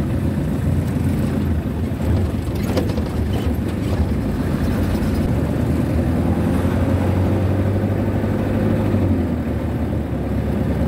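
Motorcycle engine running steadily under way, with wind rumble on the microphone.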